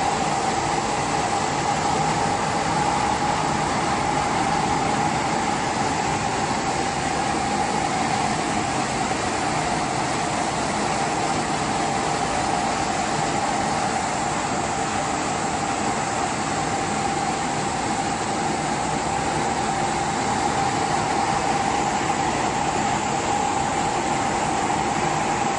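Horizontal flat-glass washing machine running: a steady mechanical hum and hiss with a constant mid-pitched whine.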